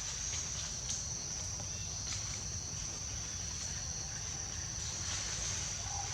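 Outdoor background noise: a steady high-pitched hum over a low rumble, with a few faint clicks.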